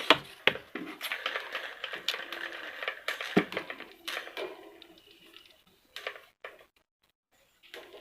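Clicking and clattering of small hard parts being handled, dense in the first half and thinning out, with a faint steady hum in the middle.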